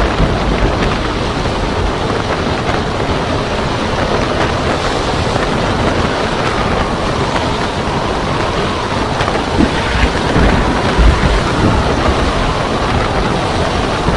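Storm wind buffeting the microphone over heavy surf breaking on the shore, a steady rushing noise with a deep rumble, with a few louder gusts about two-thirds of the way in.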